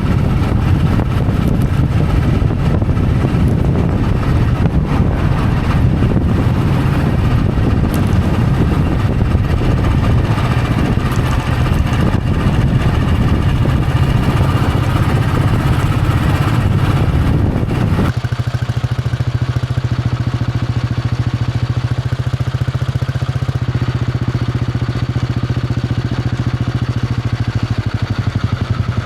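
Royal Enfield Bullet 500's single-cylinder engine running with its steady exhaust thump. About 18 s in it becomes softer and smoother, with less of the higher-pitched mechanical noise.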